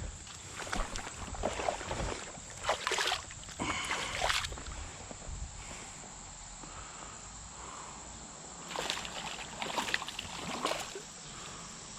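Creek water splashing and sloshing in several short bursts, over a steady hiss.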